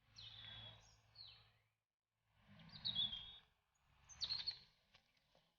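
A bird calling three times in short bursts, each a high note with quick falling slides.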